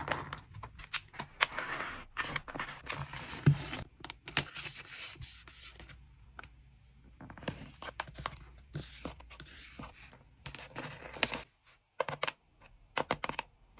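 Hands packing collectible cards: plastic packaging crinkling and scraping, with irregular sharp clicks and taps. Near the end it thins out to a few isolated clicks.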